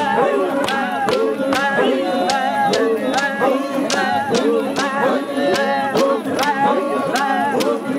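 A group of Il Chamus singers, men's voices among them, singing together unaccompanied, with sharp rhythmic beats about twice a second.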